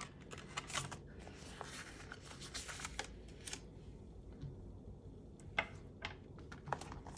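Polymer banknotes and plastic binder envelopes being handled: soft rustling with scattered light clicks and taps, the sharpest right at the start and about five and a half seconds in.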